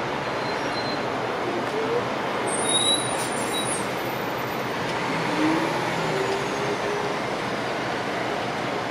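Amtrak Pacific Surfliner passenger train led by a Siemens Charger diesel locomotive, running toward the listener: a steady noise of the engine and wheels on the rails.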